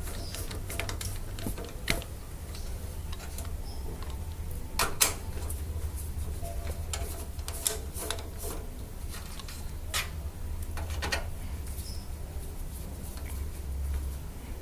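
Screwdriver backing out the power supply's mounting screws from the back of a steel PC case: scattered light clicks and scrapes, with a few sharper metallic clicks, over a steady low hum.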